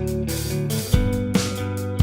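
Instrumental background music with guitar and a steady beat of sharp hits; the bass drops out for a moment about halfway through, then comes back with a hit about a second in.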